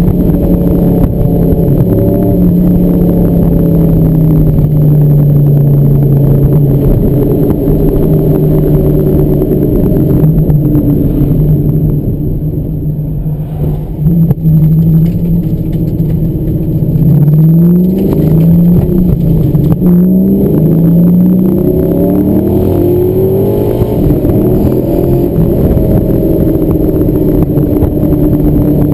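SLP Firehawk's LS1 V8 heard from inside the cabin: a steady cruising drone that eases off for a couple of seconds about halfway. It then revs up and drops back several times in quick succession as it pulls through the gears, and settles into a steady cruise.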